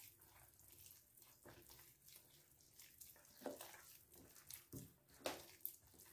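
Faint, irregular wet squelching and soft slaps of a hand working flour into a runny, sticky bread dough, with a few louder squelches in the second half.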